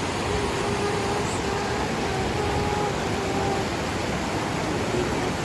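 Steady rushing noise of running water, with a faint tone underneath that comes and goes.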